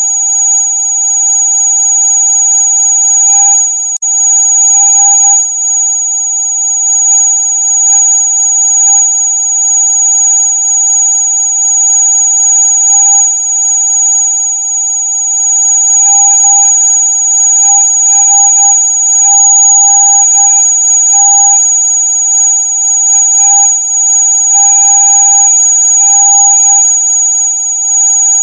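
Electronic rat-repellent sound: a loud, steady, piercing tone made of several pitches held together, the high one strongest, with a slight flutter now and then.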